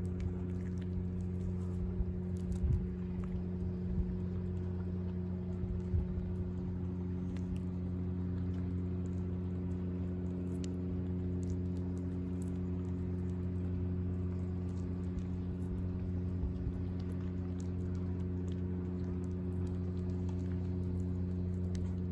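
Cat chewing and biting a raw fish, with small clicks here and there, over a steady low mechanical hum.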